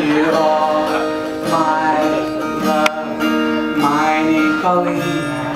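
A song played on acoustic guitar, with plucked and strummed chords and no words sung in this stretch.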